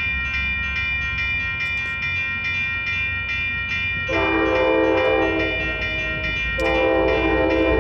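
Grade-crossing warning bell ringing steadily at about two and a half strikes a second, with an approaching train's air horn sounding two long blasts over it, starting about halfway through and louder than the bell.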